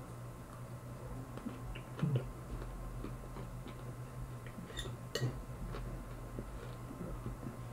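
Close-mouthed chewing of a forkful of shredded cabbage-and-carrot salad, with small irregular ticks and smacks. A fork knocks and clinks against the plate a couple of times, loudest about two seconds in and about five seconds in, over a steady low hum.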